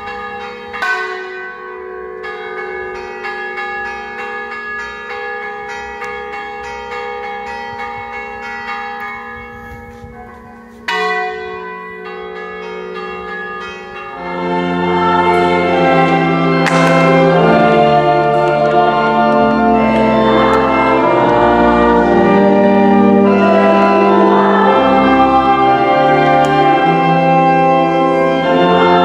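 Church bells: a bell is struck and rings on with a long, slowly fading tone, and is struck again about eleven seconds in. From about halfway a louder, fuller ringing of many overlapping tones takes over.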